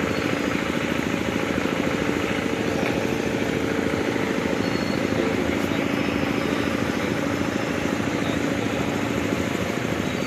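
An engine running steadily, a continuous drone with a faint hum in it that fades out a little past the middle.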